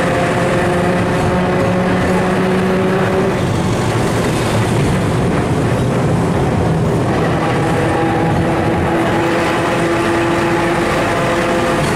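Historic tram running along the street, heard from inside: a steady rumble of wheels on rails with a whine of several steady tones. The whine fades for a few seconds in the middle and comes back.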